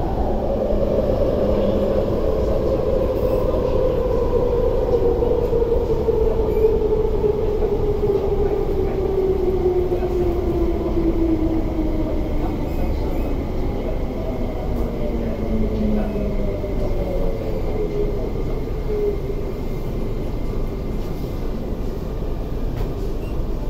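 Electric metro train heard from inside the carriage as it slows down. The traction motors' whine falls steadily in pitch over about twelve seconds, and a second falling whine follows a few seconds later, over a constant rumble of wheels on rail.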